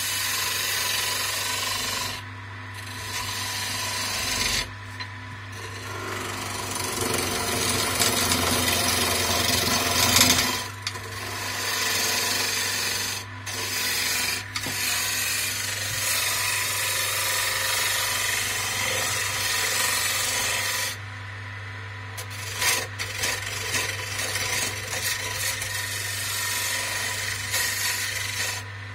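HAIS wood lathe's motor humming steadily while a hand-held gouge cuts the spinning wood spindle, a rough hiss of shavings that breaks off and starts again several times as the tool is lifted from the work.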